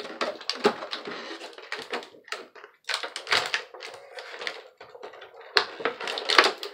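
Clear plastic toy-packaging tray crinkling and crackling as it is flexed and a figure is pried out of it: a dense, irregular run of sharp clicks and crackles.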